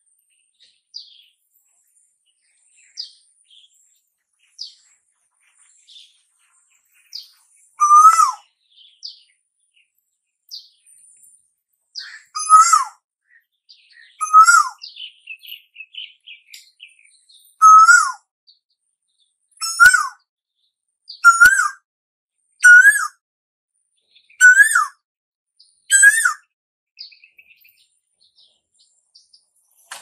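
Asian koel calling: a series of loud, short calls that come closer together and climb slightly in pitch, about every one and a half seconds towards the end. Fainter short chirps fall in the gaps.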